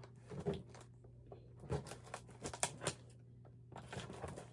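Hands handling a cardboard box: a scatter of light taps and scrapes of fingers and nails on the cardboard.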